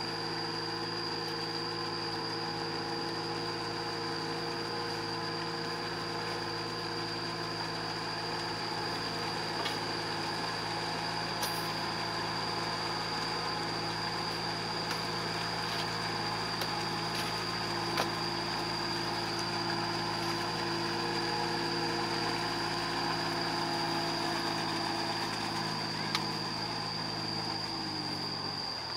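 Small diesel compact tractor running steadily under load as it drags a levelling board through a flooded rice paddy on cage wheels, with a steady high-pitched whine over it. Near the end the engine note drops.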